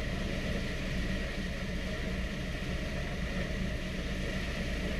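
The B-25 Mitchell's Wright R-2600 radial engines running steadily at idle, heard inside the bomber's fuselage as an even, low rumble.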